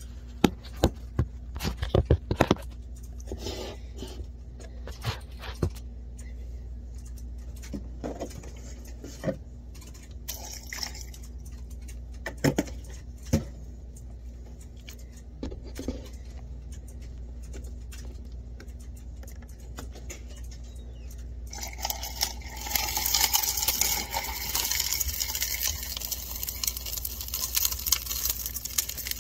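Small plastic turtle tank being handled: scattered clicks and knocks, thickest in the first few seconds, then a steady hiss like running water for the last seven seconds or so.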